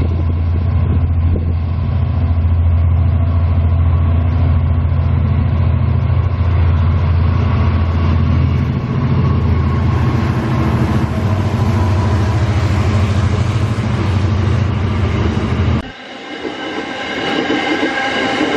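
Aurizon diesel locomotive passing at close range, its engine running with a loud, steady low hum as it hauls a wheat train of hopper wagons. Near the end the engine sound drops away suddenly, leaving the rumble of the loaded wagons rolling past.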